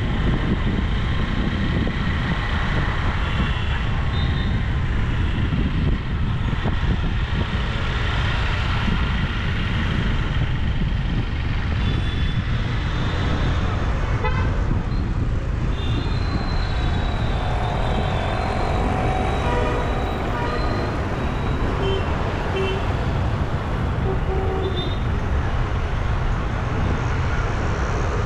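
Steady low road and engine rumble from a moving car in city traffic, with several short vehicle horn toots from the surrounding traffic.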